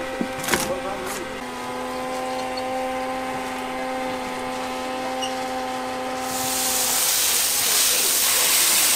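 A steady machine hum, with a couple of clicks near the start. About six seconds in, a loud steady hiss rises and takes over.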